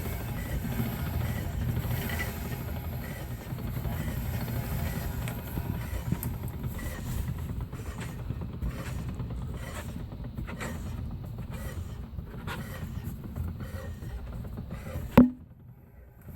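Rear differential of a 2001 BMW E46 325i running under a steady low drivetrain rumble, with a slight clunking and rattling and a light rubbing of the discs; the BMW dealer judges the noise perfectly normal. A single loud knock comes shortly before the end, after which the running noise cuts off suddenly.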